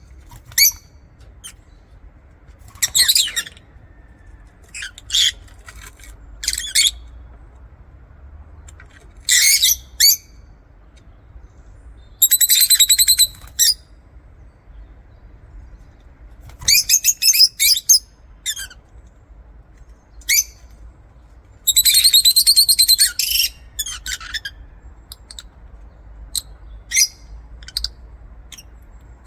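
Lovebirds chirping: short, shrill, high chirps, some single and some in fast runs lasting a second or two, with quieter gaps between.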